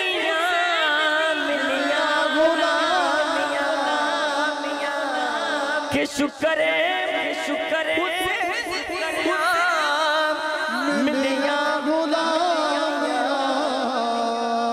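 A man singing a naat through a microphone, a long wordless melismatic passage whose pitch wavers and glides over a steady sustained drone. It breaks off briefly about six seconds in.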